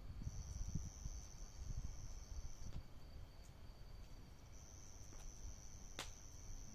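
Crickets trilling at night: two long high-pitched trills, each a couple of seconds or more, over a fainter steady trill, with low rumbling noise and a single sharp click about six seconds in.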